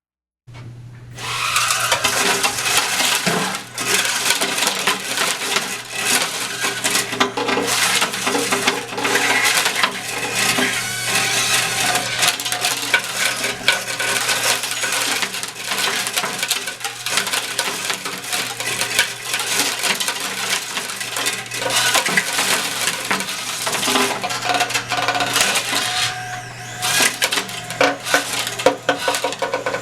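Small remote-control copter's electric motors and rotors running with a steady hum, under dense, continuous rattling and clicking like blades striking things. It starts about half a second in.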